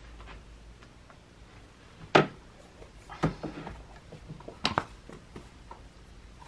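Sharp clicks and taps of a tablet and its black folio cover being handled on a desk: a loud one about two seconds in, another about a second later with a few softer taps after it, and a quick double click near the five-second mark.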